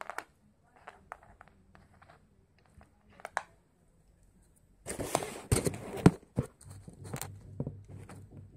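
Small clicks and taps from e-bike cables and connectors being handled. About five seconds in, a loud stretch of rustling and knocks follows, with a faint low hum under the quieter rustle near the end.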